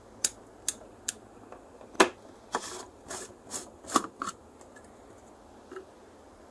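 Three sharp clicks of an inline cord switch being flicked, then a run of plastic clicks and short rubbing scrapes as the LED bulb is gripped and twisted by hand.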